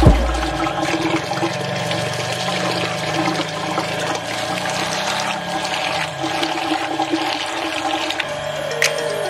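Tap water running and splashing into a plastic bowl while hands rub and swirl red rice grains to rinse them, with background music.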